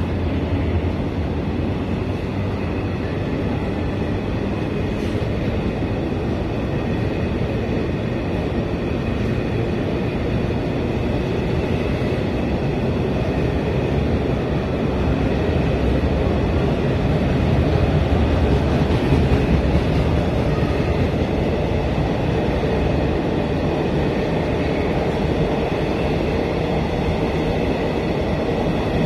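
Intermodal freight train's container flat wagons rolling past at a steady speed: a continuous heavy rumble and rattle of wheels on rail, with a faint high whine.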